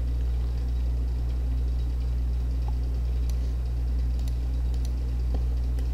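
Steady low hum and background noise from the recording setup, with a few faint clicks scattered through it.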